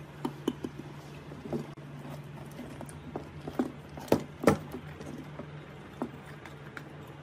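Hands handling wiring, a crossover circuit board and terminal parts at a wooden speaker cabinet: scattered light clicks and knocks, with two louder knocks a little after four seconds in. A steady low hum runs underneath.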